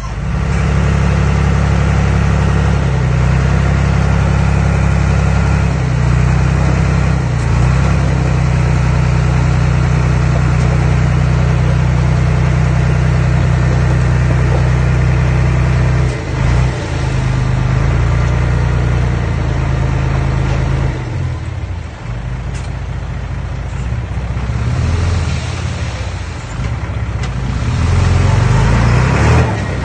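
Diesel engine of heavy earthmoving machinery running steadily under work, with a brief dip about halfway through and again a few seconds later, then building louder near the end.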